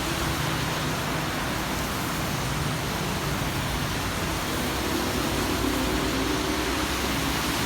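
Steady rain falling, an even hiss, with a faint low hum coming in during the second half.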